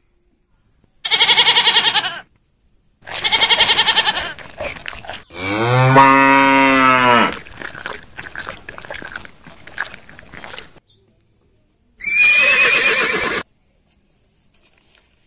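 Farm animal calls, laid in as sound effects: short wavering bleats about a second and three seconds in, then one long cow moo about six seconds in, which is the loudest call, then another wavering call near the end.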